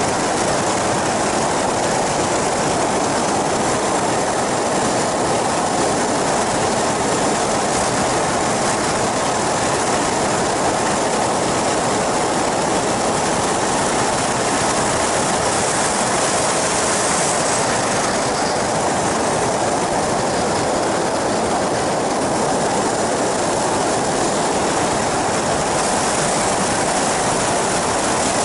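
Steady, unbroken drone of an ultralight flying boat's engine and propeller in flight, mixed with rushing air.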